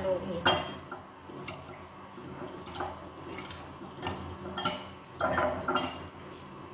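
Metal spoon stirring a chopped onion, cherry tomato, olive and herb mixture in a ceramic bowl, with irregular clinks and scrapes of the spoon against the bowl.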